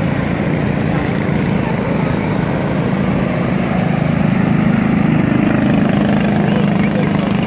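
Engines of several junior sprint cars running together as the field circles a dirt oval at low speed, with a steady drone that grows louder about four seconds in as cars pass close.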